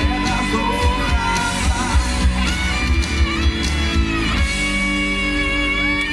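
A song playing loudly, with singing and guitar over a heavy bass beat; the bass drops away about four and a half seconds in.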